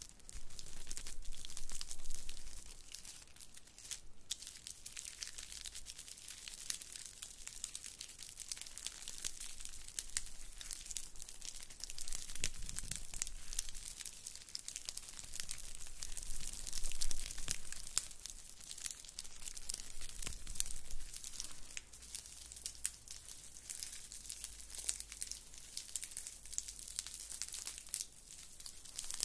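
Fingernails scratching and rubbing a round braided straw mat held close to the microphones: dense, crackly rustling of dry woven fibres, a little louder about two seconds in and again about halfway.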